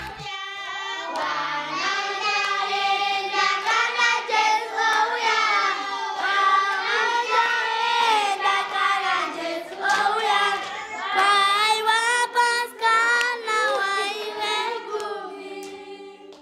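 A group of children singing together, unaccompanied, fading out near the end.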